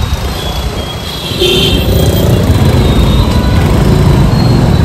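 Road vehicle noise with a heavy low rumble, stepping up in loudness about a second and a half in.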